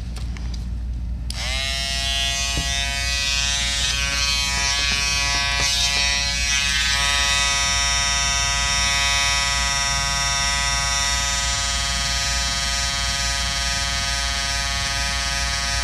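Wahl Peanut electric trimmer switched on about a second in, spinning up briefly and then buzzing steadily as its blade is worked into embroidery stitches. A few faint clicks sound over the buzz in the first seconds of cutting.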